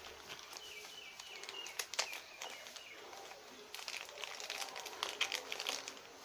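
Small plastic clicks and handling noises as the camera's battery compartment is worked and the battery is taken out, with a sharp click about two seconds in and a denser run of clicks in the second half.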